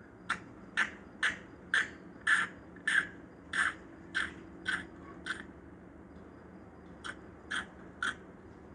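A bird's harsh calls, repeated about twice a second: ten in a row, then three more after a short pause near the end.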